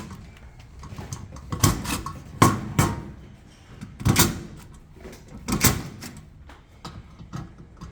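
Irregular knocks and clanks of sheet-metal gas grill parts being handled and set against each other during assembly, about five louder ones among smaller taps.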